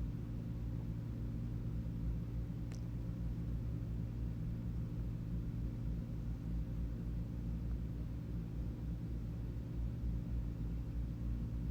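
Steady low hum with one faint click about three seconds in.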